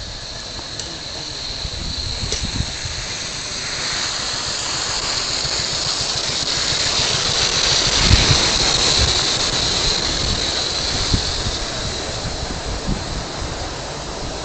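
5 inch gauge live-steam B1 model locomotive (Martin Evans "Springbok") running by with a steady high-pitched hiss. The sound grows to its loudest about halfway through as the engine passes, with a few low knocks from the wheels and riding cars, then fades as it moves away.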